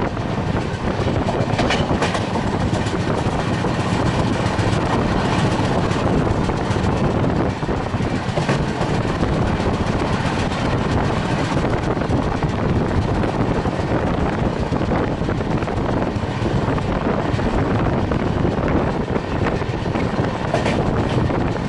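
Passenger train running along the track: a steady rolling rumble of the coach, with now and then a faint click of the wheels over the rails.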